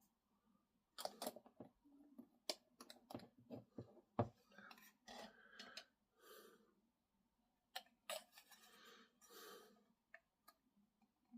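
Faint clicks, taps and short scraping sounds of small plastic model-kit parts and tools being handled, the sharpest click about four seconds in.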